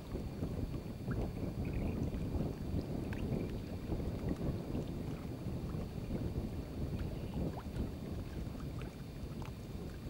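Wind buffeting the microphone: a steady low rumble that flickers up and down, with a few faint short high chirps now and then.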